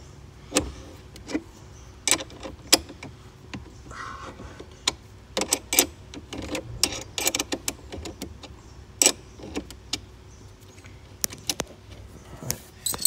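Steel spanner clinking against a car battery's terminal clamp nut as it is fitted and worked: a string of sharp, irregular metallic clicks. The nut is stubborn and not turning.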